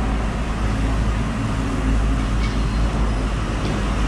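Steady low rumble of background noise, with a few faint light ticks about two and a half and three and a half seconds in.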